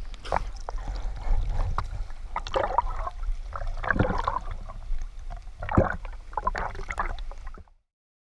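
Surface water splashing and sloshing around a GoPro held at the waterline, with irregular splashes from swimmers' strokes over a low rumble of moving water. It cuts off suddenly near the end.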